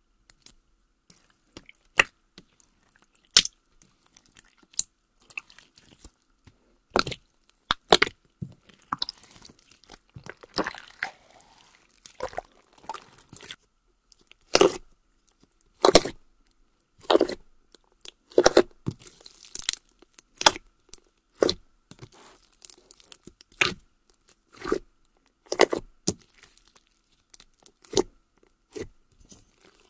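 Fingers poking, stretching and squeezing a large mass of fluffy white slime, giving separate sticky pops and crackly squishes about once a second, some in quick clusters.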